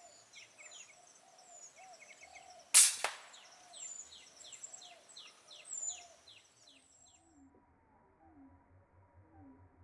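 A single PCP air rifle shot, a sharp crack with a short ringing tail, about three seconds in, over small birds chirping repeatedly in short falling notes. The high birdsong cuts off abruptly about seven seconds in, leaving only faint low sounds.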